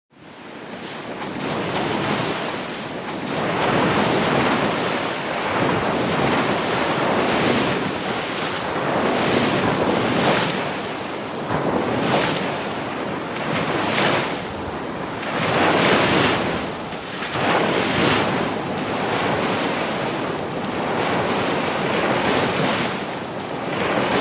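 Ocean surf: waves washing in and breaking one after another as a steady rush, swelling and ebbing about every two seconds. The sound fades in quickly out of silence right at the start.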